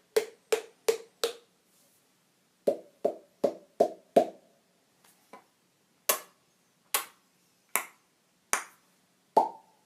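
Body-percussion mouth and cheek sounds: short hollow pops made with the face, first in quick runs of about five whose pitch steps up from one run to the next, then several sharper clicks about a second apart, and a last higher pop near the end.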